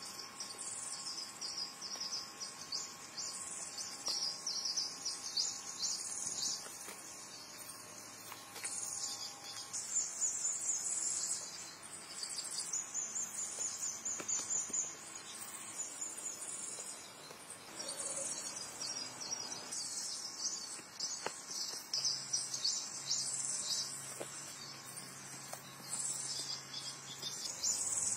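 Insects chirring in fast, high-pitched pulses, in stretches of a few seconds with short breaks between.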